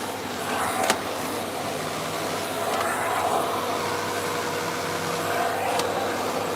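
Vacuum cleaner running steadily, with a faint steady whine coming in partway through and two sharp clicks, about a second in and near the end.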